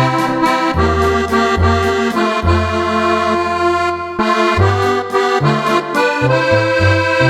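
Roland FR-4X digital accordion playing a tune: held treble chords and melody over a bass line that steps to a new note about every second, with quicker bass notes near the end.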